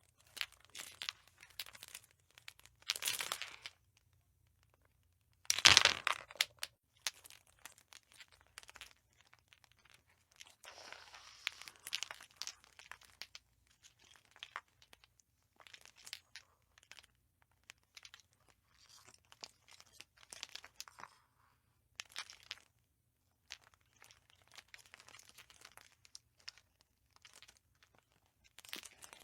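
A light bulb being handled, giving irregular crackling, scraping and crinkling noises in short bursts with brief pauses. The loudest burst comes about six seconds in.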